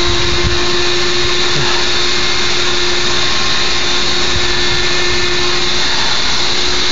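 Bee vacuum running steadily: a motor drawing air through a hose into a 5-gallon bucket, giving a steady hum over rushing air.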